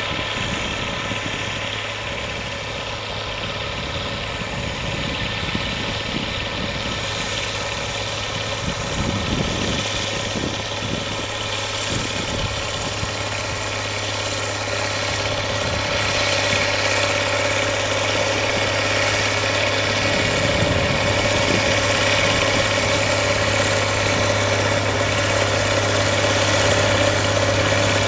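Ursus 1614 Turbo tractor's six-cylinder turbo diesel engine running under load as it pulls a Fortschritt slurry tanker across a field, growing steadily louder as it comes closer.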